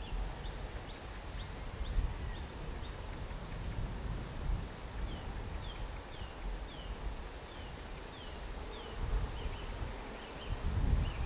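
Wind gusting on the microphone, with a bird repeating short chirps that fall in pitch, about two a second, through the middle of the stretch.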